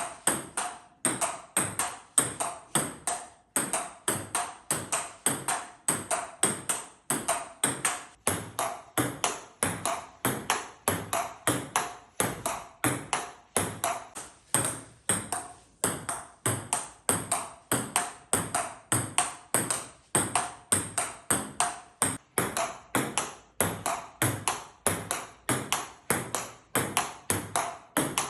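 Table tennis ball clicking sharply off bat and table in a steady, unbroken rhythm of about three hits a second.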